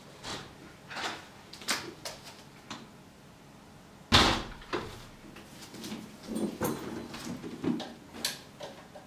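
Interior wooden door handled and shut, with one solid knock about four seconds in, the loudest sound here, among lighter clicks and knocks of handling and movement.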